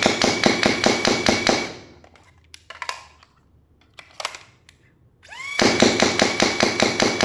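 AIT Lightning foam dart blaster firing on full auto. Its motor spins up with a rising whine, then fires a rapid, even string of shots, about ten per burst at roughly five a second. A few separate clicks come between the two bursts, and the second burst starts near the end.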